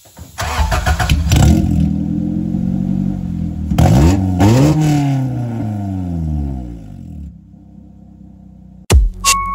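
1990 Honda Civic EF hatchback's four-cylinder engine blipped hard three times with the exhaust removed, running straight out of the open downpipe flange. Each rev climbs sharply and then falls back, before the engine settles to a low idle near the end. Music cuts in at the very end.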